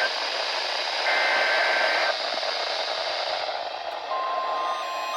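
Steady static hiss from a weather radio receiver, with a steady tone for about a second near the middle. Near the end another steady tone starts.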